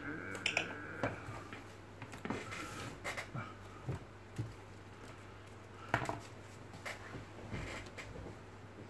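Scattered light taps and scuffs of a red lory moving and playing on a wooden desktop, in irregular single clicks a second or so apart.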